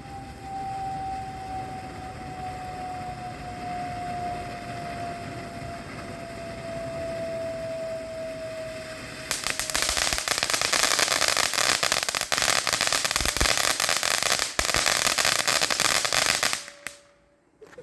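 Backyard consumer fireworks going off. A steady whistle slowly falls in pitch for about nine seconds, then loud, rapid crackling runs for about seven seconds and cuts off suddenly.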